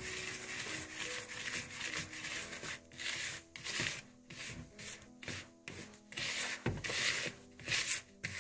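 A hand rubbing and stirring dry semolina and flour against a plastic mixing bowl, making repeated soft scraping strokes at about two a second.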